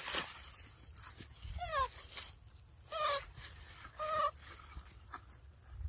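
Young macaques giving short high-pitched calls. One falls in pitch about a second and a half in, then two shorter calls follow about a second apart.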